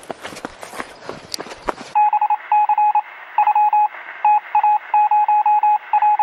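Quick running footfalls on a dirt trail for the first two seconds. Then the sound cuts abruptly to a thin, telephone-like electronic beeping: one high beep switched on and off in quick irregular bursts, louder than the footsteps.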